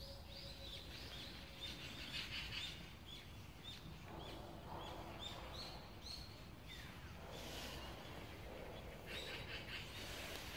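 Small birds chirping faintly: a run of short, high chirps repeating about twice a second.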